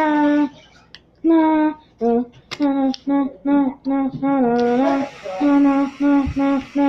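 A girl singing a tune in short, held notes. A steady hiss starts about two-thirds of the way through and carries on under the singing.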